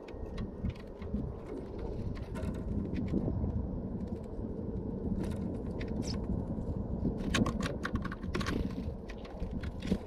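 A Eurasian tree sparrow pecking at seeds and bread on a wooden feeder: sharp, irregular beak clicks, bunched in quick runs about five seconds in and again from about seven to eight and a half seconds, over a steady low rumble.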